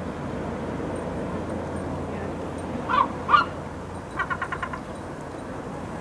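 Ruddy turnstones calling over a steady background hiss: two sharp, loud calls about three seconds in, then a fast rattling chatter of about six clipped notes.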